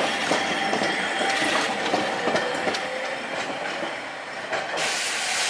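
A Hankai Tramway streetcar, car 705, passing close by on street-running track: its wheels click over rail joints while a steady whine carries under them. A short burst of hiss comes near the end.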